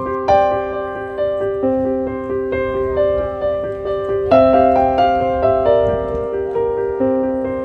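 Background piano music: a gentle melody over held chords, with notes struck about two a second and each one fading slowly.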